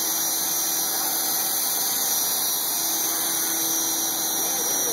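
Electric T-Rex 450 model helicopter hovering: steady whirr of its electric motor and spinning rotor blades.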